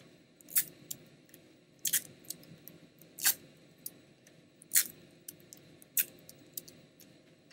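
Masking tape pulled and torn off the roll in short, sharp rips, about five of them a second or so apart, with light ticks in between as strips are handled.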